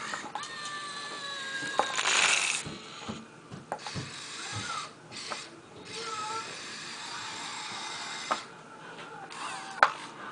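Small electric motors and gearboxes of a Kyosho Komatsu remote-control excavator whining as the boom moves and the upper body swings round, the whine changing pitch as each motion starts and stops, with clicks and a louder scratchy noise about two seconds in.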